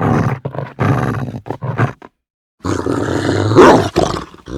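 Dog making rough, growly vocal noises: a quick run of short bursts, then, after a brief break, a longer and louder continuous growl.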